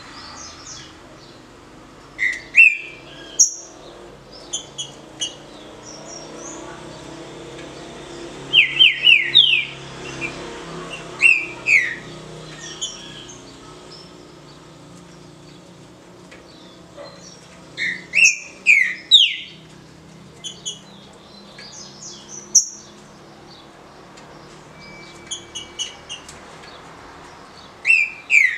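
Green-winged saltator (trinca-ferro) singing its short 'canto de roda' song: loud groups of quick whistled notes every few seconds, about six phrases in all, with softer high chirps in between.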